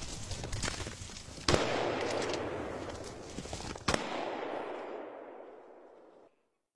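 Two loud hunting rifle shots about two and a half seconds apart, each followed by a rolling echo, with fainter cracks around them.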